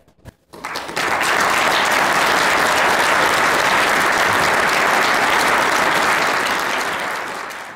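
Audience applauding: a few scattered claps swell into steady applause about a second in, which tapers off near the end.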